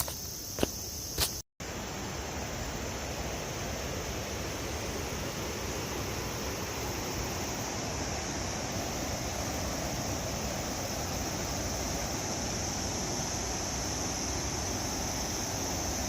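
Steady rushing of a waterfall, an even noise with no rhythm, under a constant high-pitched insect drone. In the first second or so, three footsteps, then the sound cuts off abruptly before the water noise takes over.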